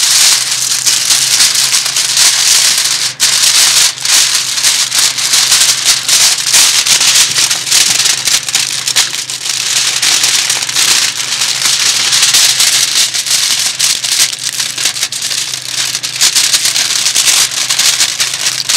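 Aluminium foil crinkling and rustling continuously as it is folded and crimped by hand into a sealed packet.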